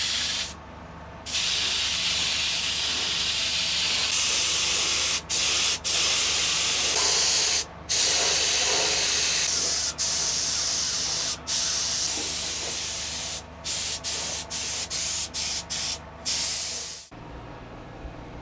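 Paint spray gun spraying a top coat in long continuous passes, with brief breaks where the trigger is released. Toward the end it fires a quick run of short bursts, then one longer pass that stops shortly before the end.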